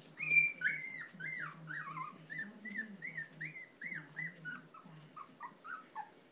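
A Tibetan Terrier puppy whining: a run of short, high whimpers, about three a second, loudest at the start and growing fainter toward the end.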